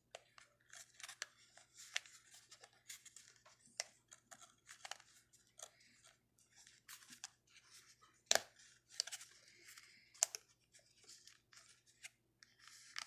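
Fingers picking and scratching at small plastic-and-card packaging: irregular crinkles, scrapes and small clicks, with two sharper clicks about eight and ten seconds in.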